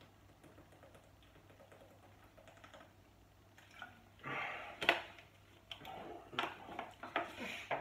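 Handling noise: a quick, irregular run of light clicks and taps with rustling, starting about four seconds in, the sharpest click about a second later.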